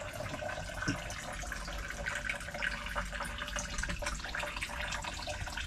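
Water trickling in a thin stream from soaked fiberglass ceiling insulation into a plastic tub, with a steady patter of small drips. It is a leak under a roof-mounted RV air conditioner, where water gets past the seal through the bolt holes and soaks the insulation.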